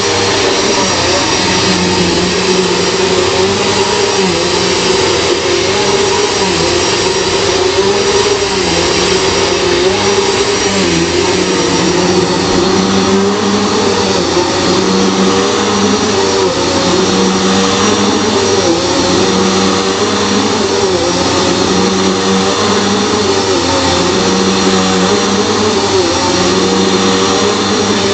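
Bissell PowerForce Turbo Pet upright vacuum cleaner running steadily while vacuuming carpet, its motor note dipping and recovering slightly as it is pushed and pulled.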